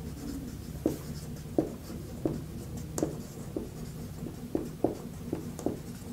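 Marker pen writing on a whiteboard: a string of short, separate strokes, about one or two a second, as letters are written.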